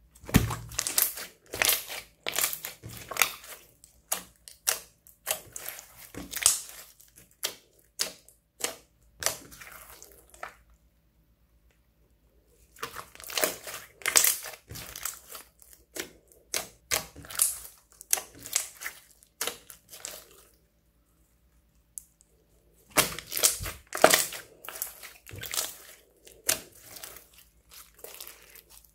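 Glossy clear slime full of glitter being squeezed, pressed and stretched by hand, giving rapid sticky clicks and crackles. It comes in three stretches with two short pauses between them.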